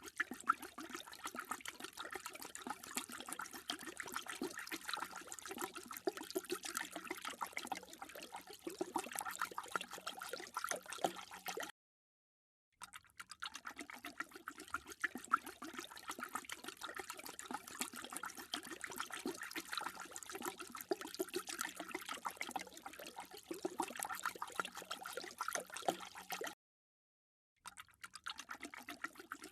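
Dog lapping water: a quick, steady run of many small wet laps, cut twice by about a second of dead silence between takes.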